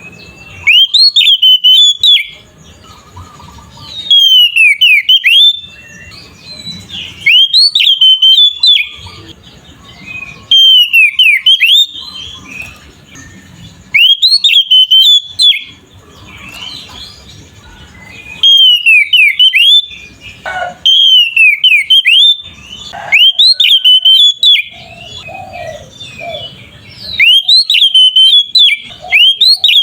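Oriental magpie-robin singing loud whistled phrases, each a second or two long with quick sweeping notes, repeated every few seconds. This is the full, open 'ngeplong' song that keepers play to a quiet magpie-robin to provoke it into singing.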